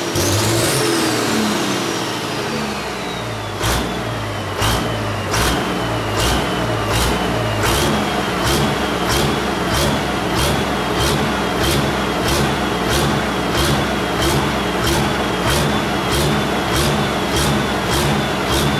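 Pulling tractor's engine running at a fast idle on a test run, with a high whine that falls in pitch over the first few seconds and then holds steady. From about four seconds in, the running takes on a regular beat of sharp pulses, roughly two a second.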